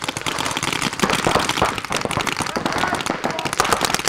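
Paintball markers firing in rapid streams of shots from several guns at once, a dense crackle of pops.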